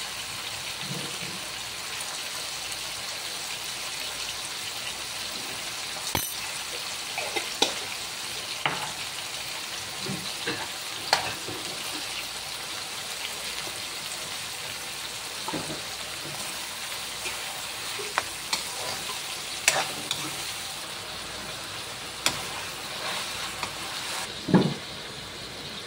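Kangkong (water spinach) stems sizzling in a wok, with a metal ladle scraping and clacking against the pan as they are stirred. There are irregular sharp clicks throughout and a heavier knock near the end.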